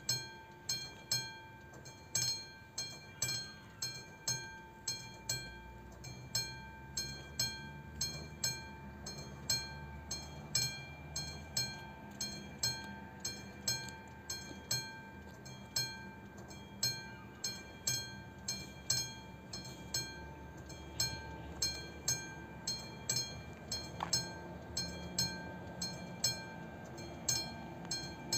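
Level crossing warning bell striking steadily, about two strikes a second, each strike ringing briefly: the crossing is closed for an approaching train. A low rumble, typical of the approaching train, builds underneath it.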